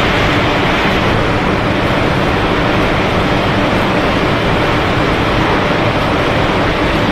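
Snack pellet production line machinery running: a loud, steady mechanical noise with a faint constant hum, from the conveyors and their motors.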